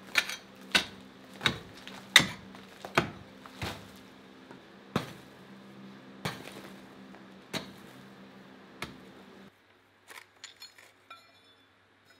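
Pickaxe striking a hard earth-and-rock wall, about ten blows, less than a second apart at first and then slower, over a steady low hum. Near the end a few light metal clinks follow.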